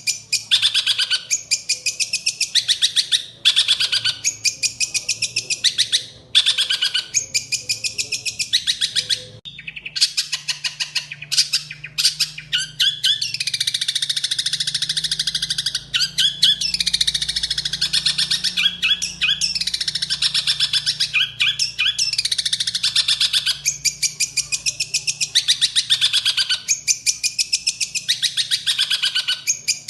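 Songbird song: high-pitched chattering phrases of rapid repeated notes, pausing briefly about nine seconds in and then running on with sweeping, slurred notes.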